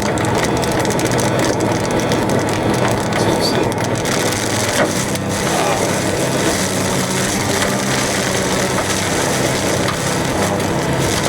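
Hail coming down hard: a loud, dense, unbroken clatter of hailstone impacts.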